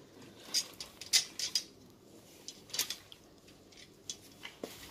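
Plastic rods and connectors of a baby cot's mosquito-net canopy frame being fitted together by hand: several short clicks and rattles of hard plastic.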